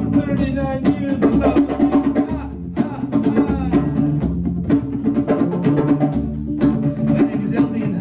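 Live band music: a drum kit keeps a steady beat over sustained low pitched notes from the band's instruments.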